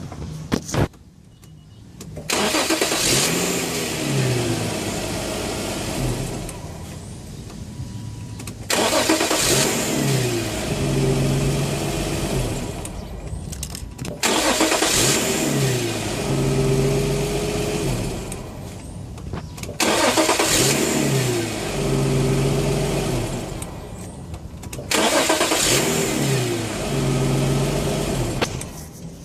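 Infiniti G35's 3.5-litre V6 being started about five times in a row: each start is a loud burst of revs that falls away and settles into a steady fast idle with a hiss and a steady whine, the start-up noise the owner is showing. A brief sharp knock comes about a second in, before the first start.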